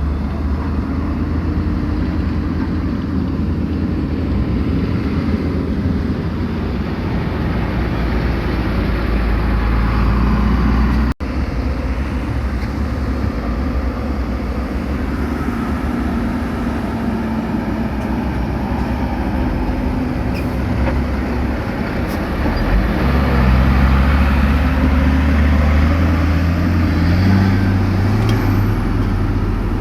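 Diesel engines of heavy earthmoving machinery running steadily under work, a low drone with a clear engine note. There is a momentary dropout near the middle, and the engine gets louder and higher in pitch in the last third.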